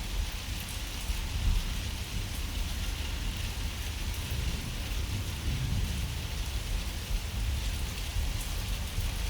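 Steady heavy rain hissing on surfaces, over a continuous low rolling rumble of thunder that swells a little past the middle.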